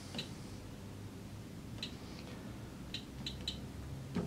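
Quorion QTouch 10 touchscreen POS terminal giving short, high key-press beeps as on-screen buttons are tapped, about six in all, with three in quick succession past the three-second mark.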